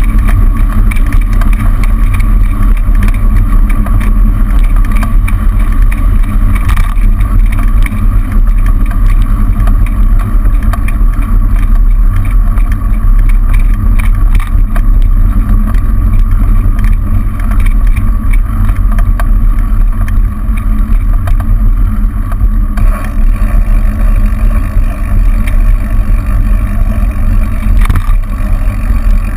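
Steady wind buffeting and road rumble on a bicycle-mounted camera's microphone while riding, with car traffic in the next lanes. The sound shifts in tone about three-quarters of the way through.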